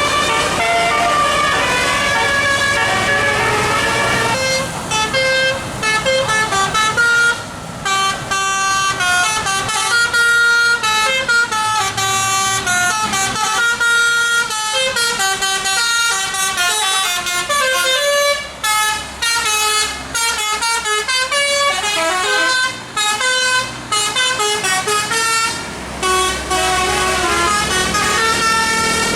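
Bus telolet horn, a multi-tone air horn playing a fast melody of stepped notes with a few short breaks, over a low rumble.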